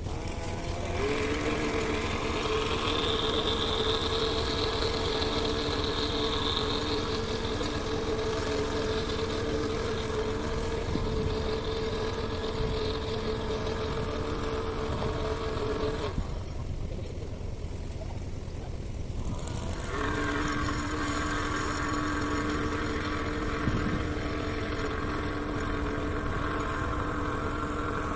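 A small engine running steadily at a constant pitch. It drops away for a few seconds about halfway through, then comes back and runs steadily again.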